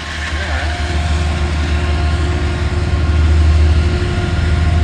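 Amtrak diesel locomotive engine running hard as the train pulls out, a loud, steady low drone with a few steady tones above it, growing a little louder about three seconds in.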